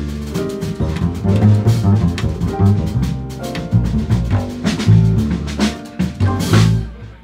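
A jazz quartet of piano, saxophone, bass and drums playing.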